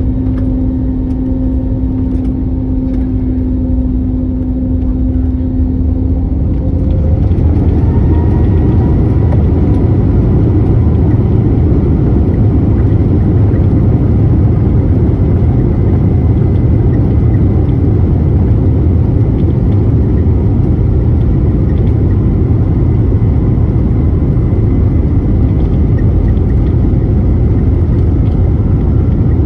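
Airbus A321neo's jet engines heard from inside the passenger cabin. A steady hum gives way about seven seconds in to a louder, fuller rumble with faint rising whines as thrust is increased, then holds steady.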